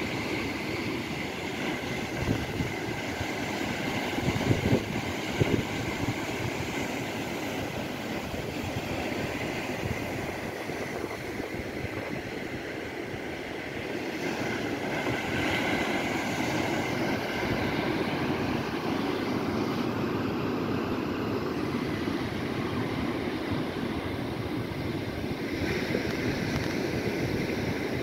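Calm Atlantic sea waves washing against the shore in a steady rushing wash that grows louder about halfway through.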